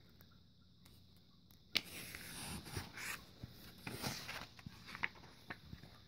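Pages of a paper catalog being handled and turned: a sharp crinkle nearly two seconds in, then a few seconds of paper rustling and sliding, with a couple of small paper clicks near the end.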